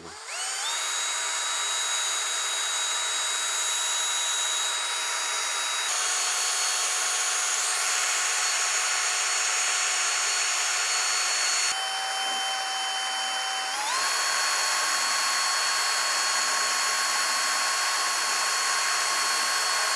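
Small high-speed rotary tool with a diamond grinding head, spinning up and then running steadily against quartzite, a high whine over a gritty grinding hiss as it roughs off excess stone. The whine drops in pitch about twelve seconds in and climbs back two seconds later.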